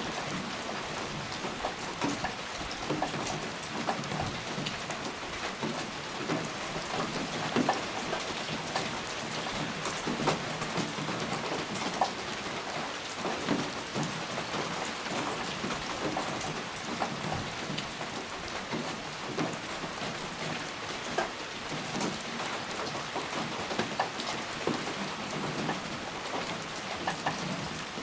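Steady rain falling on a surface, a constant hiss dotted with many individual raindrop ticks and splats.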